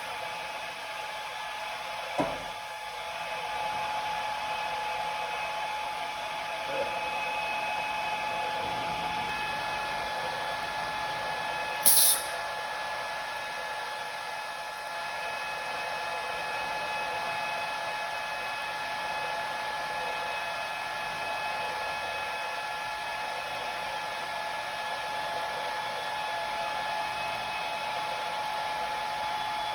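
Morbidelli CX 100 vertical CNC boring centre running, its motors giving a steady whine with several higher tones above it. A single knock comes about two seconds in, and a short, loud hiss about twelve seconds in.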